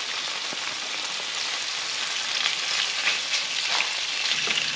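Mahi fillets frying in butter in a pan, a steady crackling sizzle.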